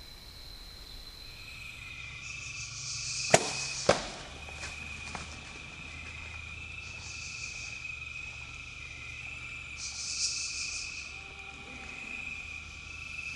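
A Hoyt Helix Ultra compound bow is shot: two sharp cracks about half a second apart, the string's release and then the arrow striking. Crickets and other insects call steadily throughout, with rasping pulses every few seconds.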